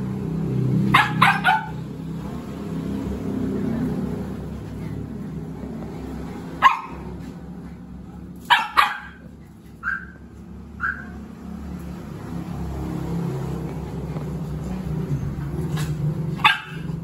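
Dogs barking for treats in short, sharp barks: a quick run of three about a second in, then single barks and pairs through the middle and one more near the end, over a steady low hum.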